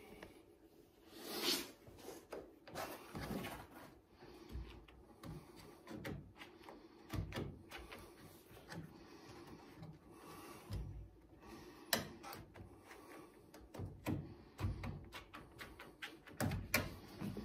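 Irregular clicks, knocks and rubbing as rubber weatherstripping is pushed and worked into a car's metal roof rail by hand.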